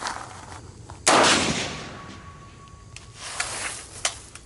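A single AR-15 rifle shot, a sharp loud crack that rings away over about a second. A few light knocks and scuffs follow near the end.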